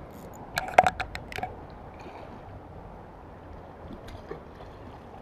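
Hooked mullet thrashing at the surface while being played on the line: a quick burst of sharp splashes about a second in, then fainter splashing near the end.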